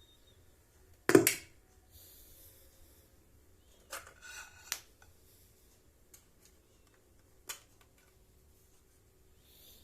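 Sparse handling knocks and clicks: one loud knock about a second in, a short scrape around four seconds that ends in a click, and another click past seven seconds.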